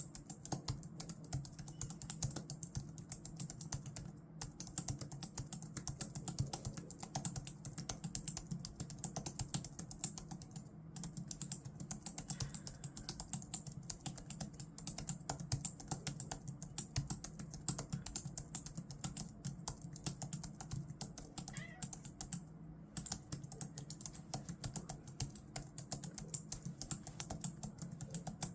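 Fast, continuous typing on a Logitech MX Keys keyboard, keys clicking rapidly, with brief pauses about four, eleven and twenty-three seconds in.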